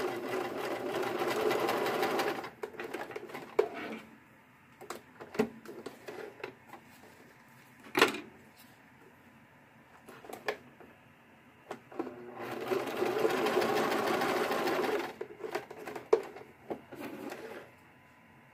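Electric sewing machine stitching a basting seam, running steadily for about two and a half seconds, stopping, then running again for about three seconds later on. Between the runs there are scattered clicks and taps, the sharpest about eight seconds in.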